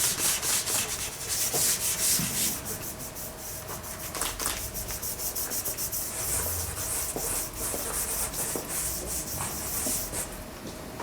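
Dry pastel being blended over primed pastel paper with a piece of polypropylene pipe material: a quick, continuous series of scratchy rubbing strokes, heaviest in the first couple of seconds.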